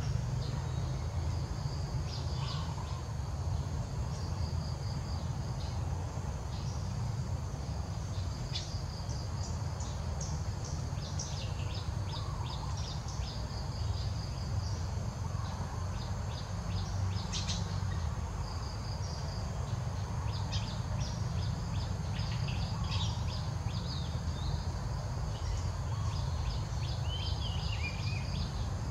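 Outdoor ambience: a steady low rumble under many short, high chirps and trills scattered throughout, with a short falling chirp near the end.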